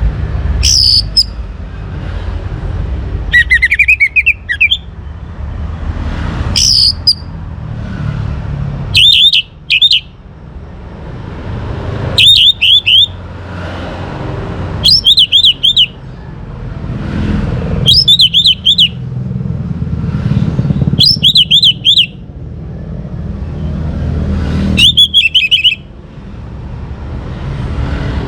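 Orange-headed thrush singing short, loud phrases of quick warbled notes, one about every three seconds, over a steady low rumble.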